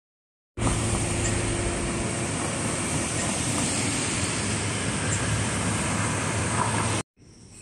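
Steady, loud vehicle noise: a low engine hum under an even rushing hiss, starting abruptly and cutting off suddenly near the end.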